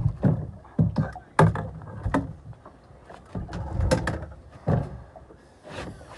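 A run of irregular knocks and thumps close to the microphone, with a quieter stretch in the middle.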